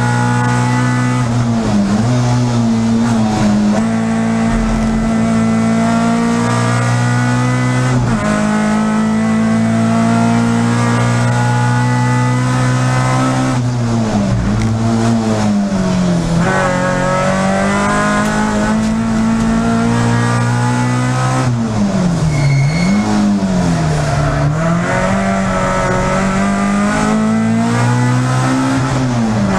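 Peugeot 306 Group A rally car's engine heard from inside the cockpit, run hard at high revs, with repeated gear changes and lifts where the pitch drops and then climbs again.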